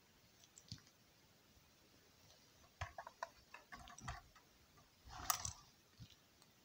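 Faint clicks and taps of small plastic Lego pieces and minifigures being handled, bunched together about three to four seconds in, with a brief louder rustle a little after five seconds.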